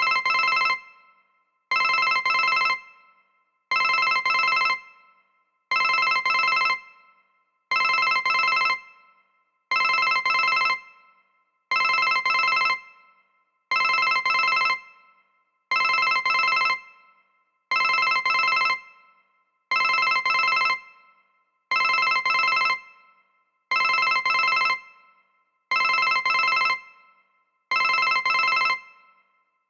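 A ZTE WeGo (S155) phone playing a built-in ringtone through its speaker: a trilling, bell-like electronic ring about a second long, repeating every two seconds at an even volume.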